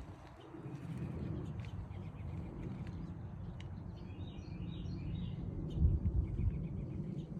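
Small birds chirping: quick runs of high chirps about four seconds in and again shortly before the end, over a low steady rumble.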